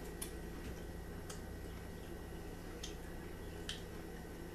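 Faint, sharp clicks of eating and handling food, about four in all, as fingers are licked and a taco shell is handled on a plate, over a steady low room hum.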